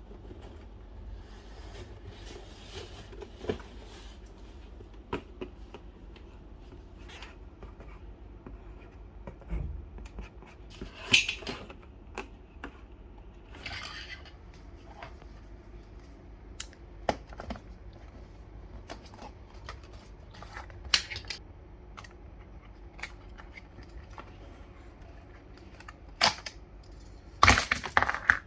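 Scattered light clicks and taps of toy packaging being handled during an unboxing, with a dense burst of plastic crinkling near the end.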